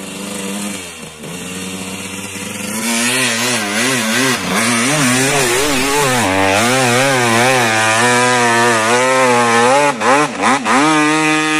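Dirt bike engine revving hard on a steep dirt hill climb, its pitch swinging up and down about once a second as the rider works the throttle. It builds up over the first few seconds, with a few brief drops in revs near the end.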